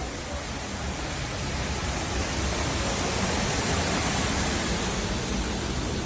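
Steady rush of falling water from the Düden waterfall, heard from inside a rock grotto. It grows a little louder around the middle.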